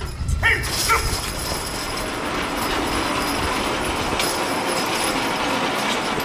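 Loaded horse-pulling rig being dragged across the dirt track by a team of draft horses: a steady rumbling, clattering grind of the rig, with two short high-pitched sounds about half a second and a second in.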